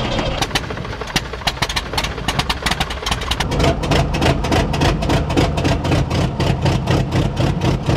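A new, not yet broken-in Lycoming IO-390 four-cylinder aircraft engine, with its propeller, running at low power just after starting. It runs with an uneven stream of beats that grows quicker and louder about three and a half seconds in.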